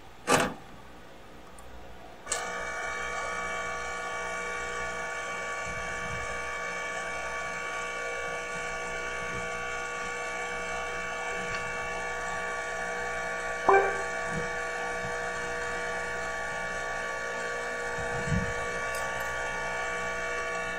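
A sharp click, then about two seconds in a small electric blower switches on and runs with a steady whine for the rest of the time. A single knock comes near the middle.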